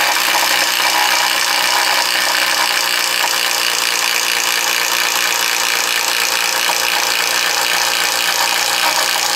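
Milwaukee M12 standard (hammer-and-anvil, non-hydraulic) impact driver hammering continuously under load as it bores a 3/4-inch speed-bore spade bit into a wooden beam on speed 3: a loud, steady, rapid impacting rattle.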